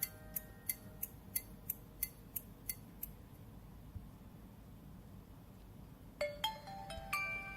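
Nokia Asha 300 feature phone playing its built-in ringtones through its small speaker: a run of short ticking pings, about three a second, that fades out around three seconds in. After a pause, a new chiming tone of several notes starts near the end.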